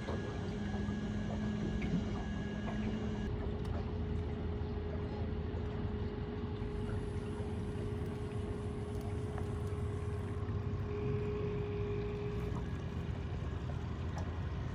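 Boat motor running steadily at slow trolling speed, a constant low rumble with a steady hum.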